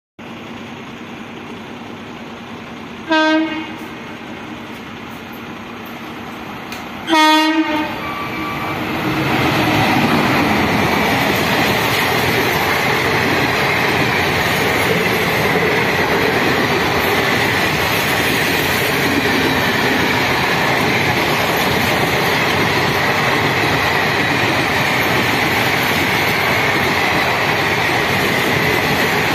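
WAP-5 electric locomotive's horn sounding twice, a short blast and then a longer one, as the express approaches. From about eight seconds in, the passing express passenger train builds to a steady loud rush of wheels on rail with clickety-clack as the coaches go by at speed.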